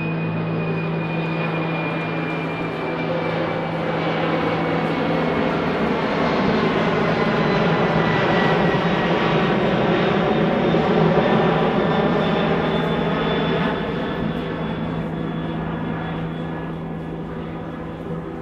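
Jet airliner passing overhead: a rush of engine noise that swells to a peak about ten seconds in and then fades, with a thin whine that slowly drops in pitch.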